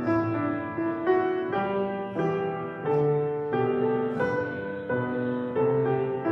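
A keyboard plays a hymn tune in slow block chords, the chords changing about every half second, each starting sharply and then fading.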